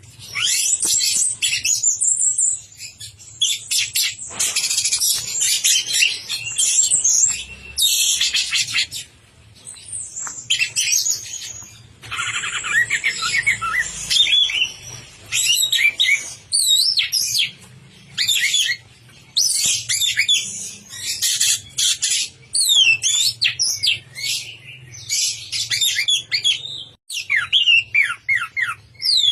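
Orange-headed thrush (anis merah) in full, continuous song: a long run of rapid, varied whistled and chattering phrases, high and quickly sliding, separated by brief pauses.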